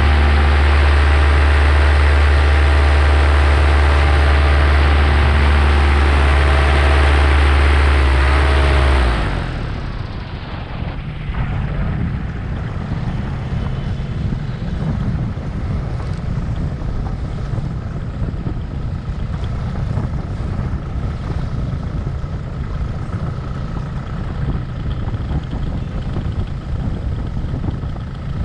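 Paramotor engine and propeller running steadily at high power, then throttled back abruptly about nine seconds in as the landing approach begins, leaving a lower, rougher rumble.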